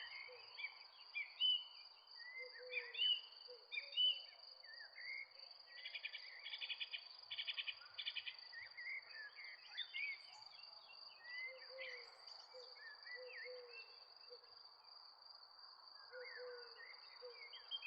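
Outdoor nature ambience: many birds chirping and whistling over a steady high-pitched insect trill, with a rapid pulsing call about six to eight seconds in and short low calls recurring.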